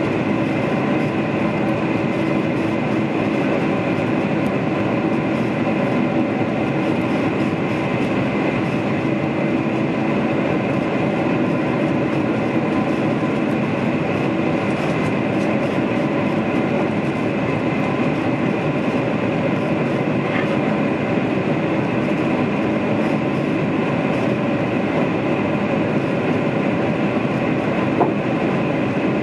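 Inside the cabin of a Boeing 747-400 climbing after takeoff: the steady rush of its turbofan engines and the airflow, with several steady engine tones running through it. A single short click near the end.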